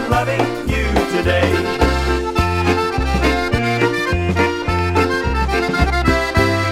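Instrumental break of a dance tune: a concertina plays the melody in full chords over a bass that sounds about two notes a second.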